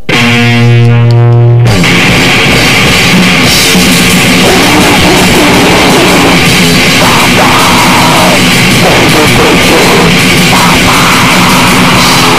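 Extreme, lo-fi noise-grind music with heavily distorted guitar and drums, recorded very loud and saturated. It opens with a held distorted chord lasting under two seconds, then breaks into a dense, unbroken wall of distortion.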